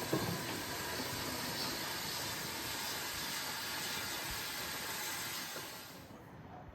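Steady hiss of steam escaping from a steam locomotive, dying away about six seconds in.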